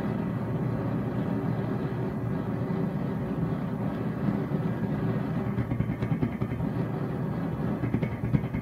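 Homemade propane and compressed-air torch burning with a steady low rumble, its flame fluttering unevenly in the last few seconds.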